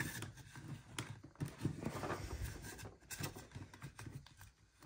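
Handling noise of a plastic action figure's magnetically attached armor pieces being pulled off by hand: irregular light clicks and short scrapes.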